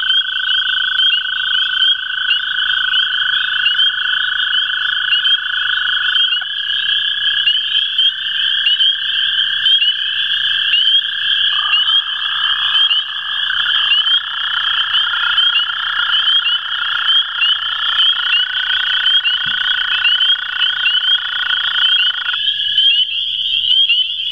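Two male American toads giving their long, steady, musical trills, the breeding call, overlapping at slightly different pitches; one trill stops shortly before the end. Behind them runs a dense chorus of high, short rising chirps.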